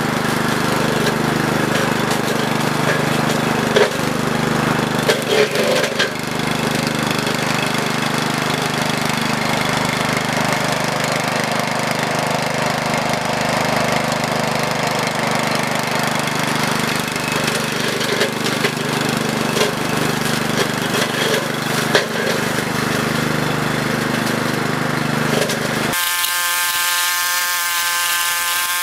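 Walk-behind brush hog's engine running steadily under load as it is pushed through brush and saplings, with a few sharp cracks of woody stems being hit. Near the end the sound abruptly changes to a thinner, higher buzz with the low rumble gone.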